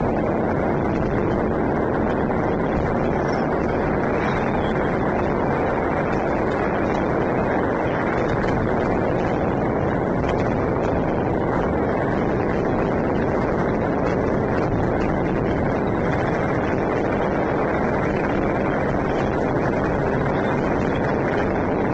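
Dense, unbroken crackle and banging of many firecrackers and fireworks going off at once, merging into a steady roar.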